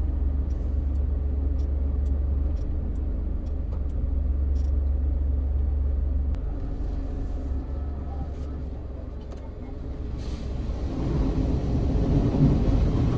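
Automatic gantry car wash heard from inside the car's cabin: a steady low rumble that thins out about six seconds in, then from about eleven seconds in the rotating brushes and water spray start scrubbing across the car, growing louder toward the end.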